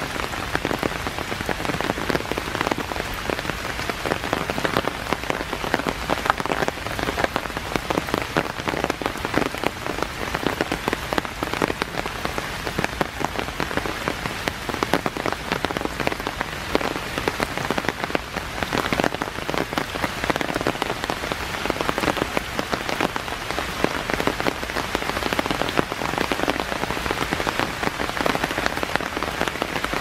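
Steady rain falling, a dense patter of separate drop hits that keeps on without let-up.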